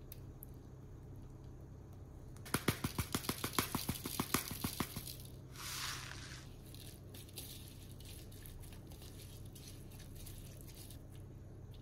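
Toasted sesame seeds going into a glass bowl of seasoned wakame: a quick run of about twenty crisp clicks lasting a couple of seconds, then a short hiss. After that, faint soft ticks as the seaweed and seeds are stirred with a spoon.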